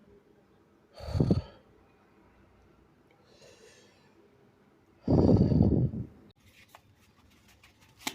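A man's nose and breath sounding in two loud, abrupt bursts, a short one about a second in and a longer, louder one about five seconds in, with a faint breath between them. These are heavy nasal exhalations in the aftermath of sneezing.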